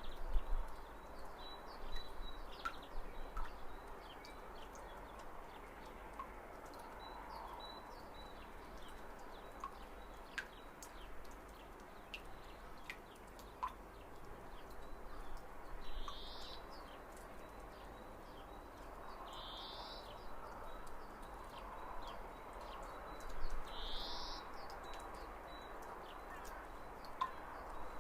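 Spring outdoor ambience of birds calling over a faint steady background hiss, with scattered short chirps. In the second half, one bird repeats a short high call about every four seconds.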